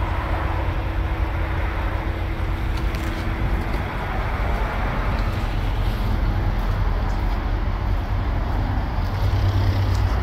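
Steady low rumble of an idling diesel truck engine.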